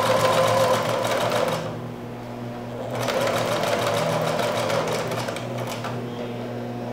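Domestic electric sewing machine stitching in a fast, even run. It stops about a second and a half in and starts again about a second later.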